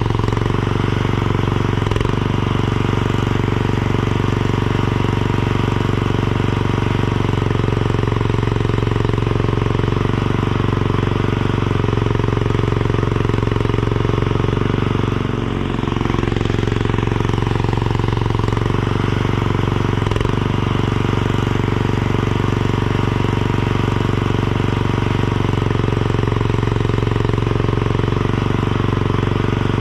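Mini skid steer's engine running steadily under work, with a rapid pulsing beat and a few brief dips in engine speed as it takes load.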